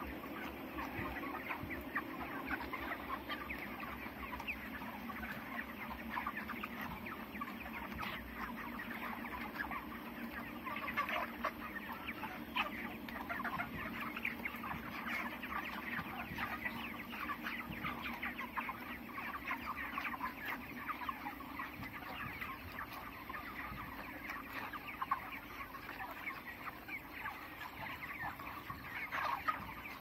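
A large flock of month-old broiler chickens crowded in a shed, a continuous din of many overlapping short clucks and cheeps with no single bird standing out.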